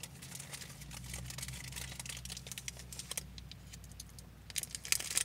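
Cardboard snack box and plastic candy-bar wrapper rustling and clicking as a bar is pulled out of the box and handled, with a low steady hum beneath.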